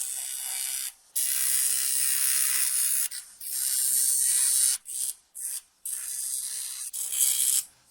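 Spray hissing in repeated bursts, the longest about two seconds, followed by several shorter blasts.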